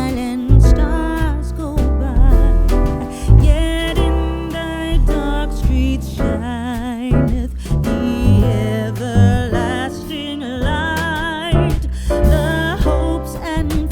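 Background music: an upbeat song with a singer over guitar and a steady bass line.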